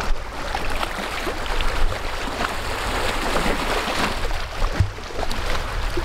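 Small wind-driven waves lapping and splashing against shoreline rocks, with wind buffeting the microphone as a steady low rumble.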